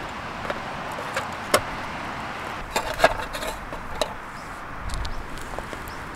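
Stones knocking against each other and against a metal pot as they are set into it: a handful of separate sharp knocks, the sharpest about a second and a half in, over a steady hiss.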